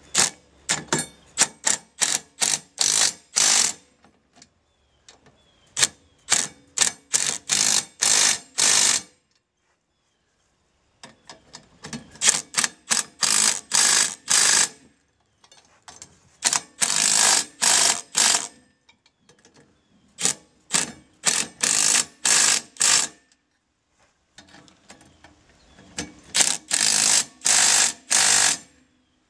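Cordless drill/driver running down the nuts on a tractor rake's tine bolts: six bursts a few seconds apart, each a run of quick rattling strokes that gets louder and denser as the nut draws tight.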